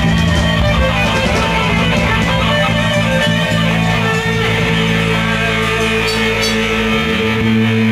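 Live rock band playing an instrumental passage: electric guitars, bass guitar and drums through the stage PA. In the second half low notes are held, and a low note slides up in pitch near the end.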